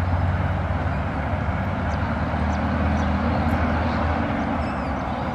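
Road traffic, trucks among it, crossing a highway bridge: a steady low rumble with no single vehicle standing out.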